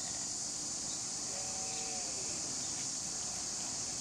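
Steady high-pitched drone of summer insects, with one brief, wavering, pitched call about a second and a half in.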